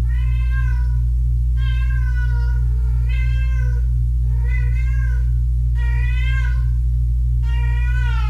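A kitten meowing repeatedly, six high-pitched meows, each about a second long, over a steady low hum.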